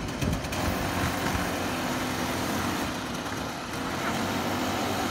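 Go-kart engines running as several small karts circle the track, a steady hum that grows slightly louder near the end as karts come closer.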